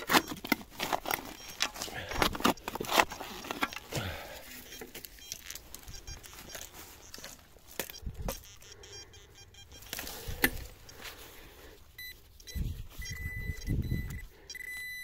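A digging tool scraping and knocking among stones and gravel, with many sharp clacks in the first few seconds and fewer later. Near the end, a metal detector sounds a steady high tone over the dug spot as it locates the target.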